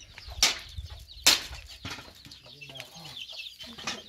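Dry firewood sticks being handled and broken: two sharp wooden cracks about half a second and just over a second in, the second the loudest, then a lighter knock.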